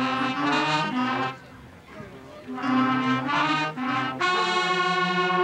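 Marching band brass playing a slow phrase of held chords in three parts, the last a long chord held for about two seconds.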